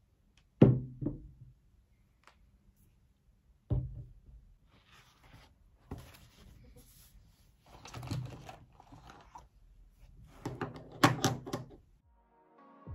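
A ceramic mug set down on a desk with two sharp knocks, then another knock a few seconds later. This is followed by paper rustling as book pages are turned and pressed flat, and a quick cluster of taps and knocks near the end. Music begins just at the close.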